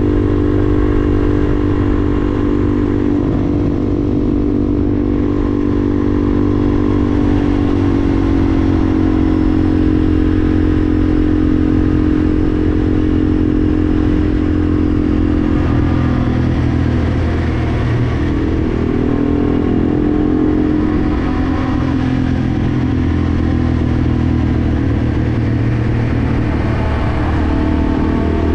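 Yamaha TW200's air-cooled single-cylinder four-stroke engine running steadily while the bike is ridden. The engine note shifts up and down in pitch with the throttle, most clearly about halfway through and again near the end.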